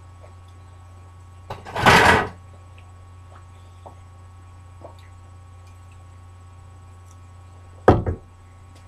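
A steady low hum with a brief loud rush of noise about two seconds in, then a sharp knock near the end as the can of club soda is set down on the table.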